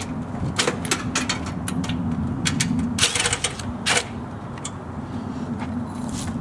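Irregular sharp metallic clicks and taps of hands and tools working at screws on the sheet-metal casing of a mini-split outdoor unit, with a quick run of clicks about three seconds in, over a steady low hum.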